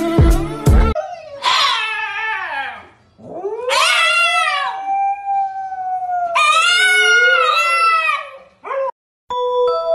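Shiba Inu howling: three long drawn-out howls whose pitch slides down, rises and wavers, the middle one held longest, then a short yelp near the end.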